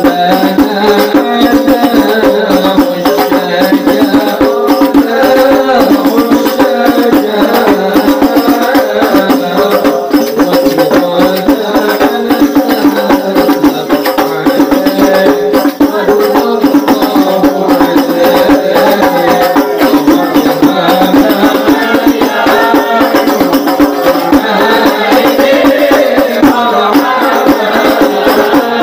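Al Habsyi hadrah ensemble: frame drums and a rattle keep a steady, dense beat under a group singing sholawat.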